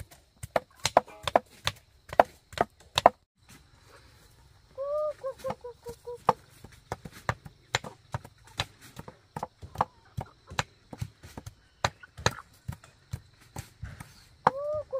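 Heavy knives chopping peeled cassava roots on a wooden stump and a wooden board: irregular sharp chops, quick and dense for the first three seconds, then after a short pause a steadier run of chops a few tenths of a second apart.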